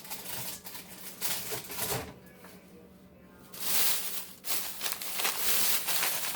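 Plastic food packaging rustling and crinkling as packages are handled and put into a refrigerator bin, in irregular bursts that are loudest in the second half, over a faint steady low hum.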